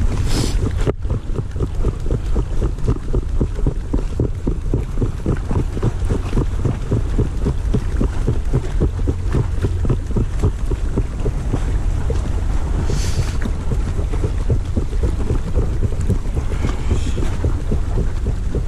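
Wind buffeting the microphone by the sea: a loud, steady low rumble with fast flutter, and a couple of brief hissy gusts.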